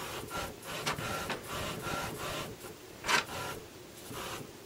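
HP Photosmart A532 inkjet photo printer printing its cartridge-alignment page: the print carriage and paper feed run in short, repeated whirring strokes, with a sharper, louder stroke about three seconds in. This is the first-time cartridge alignment run after a new cartridge is installed.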